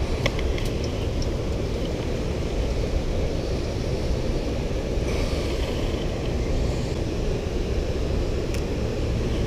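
Steady low rushing background noise, with a few faint clicks near the start and once near the end.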